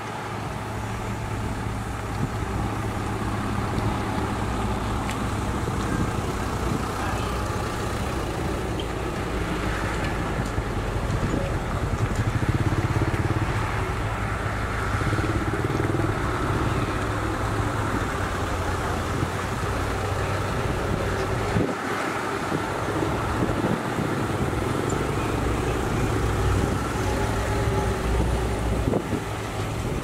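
Diesel engines of heavy earthmoving machinery running steadily, a continuous low drone that swells a little about halfway through.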